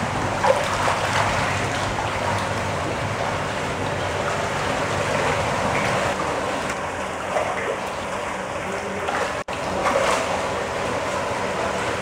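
Water splashing and churning as a dense crowd of koi thrash at the surface, a steady wash with irregular louder splashes. The sound drops out for an instant about nine and a half seconds in.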